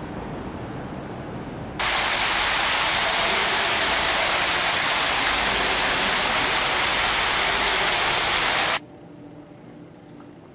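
A fountain's starburst spray jets splashing into its basin: a loud, steady rush of water that cuts in abruptly about two seconds in and cuts off abruptly near the end, leaving quiet room tone.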